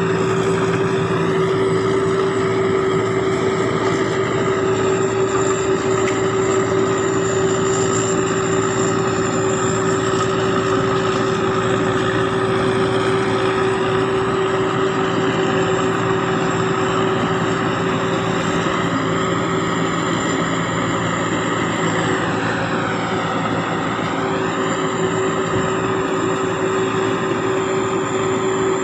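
Sakda Pattana SS-300 combine harvester's turbocharged diesel engine running steadily under load while harvesting, with a high, steady turbo whine over the engine's drone.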